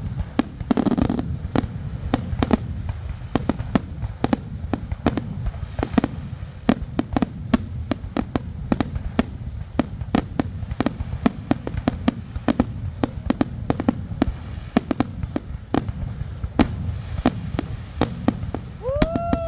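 Fireworks display: rapid, overlapping sharp bangs and crackles, several a second, over a steady low rumble of explosions. Near the end a whistle rises quickly and then slowly falls in pitch.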